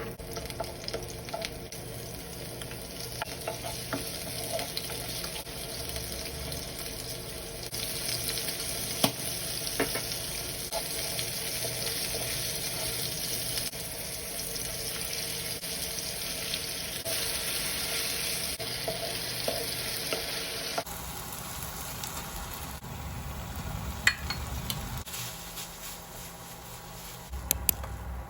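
Food sizzling in a frying pan, with occasional clicks of stirring against the pan. About three-quarters of the way through, the sizzle drops away to a quieter background broken by a few sharp knocks.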